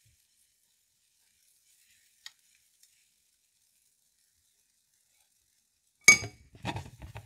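A metal spoon and kitchenware clink sharply about six seconds in, with a brief ringing, followed by about a second of scraping and knocking.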